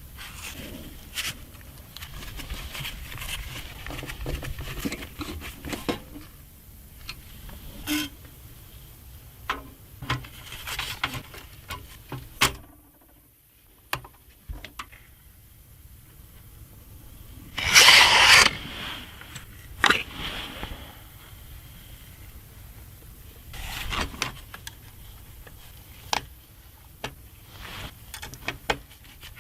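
Clicks, scrapes and rustling from handling and fitting an all-in-one CPU liquid cooler in a PC build, with one loud rustle of packaging or plastic about 18 seconds in.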